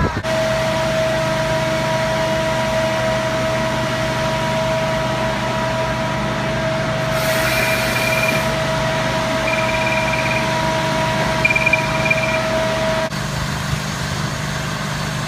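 An engine runs steadily, with a constant high whine over its low hum. Three short high beeps come a little after the middle, and the sound changes suddenly near the end.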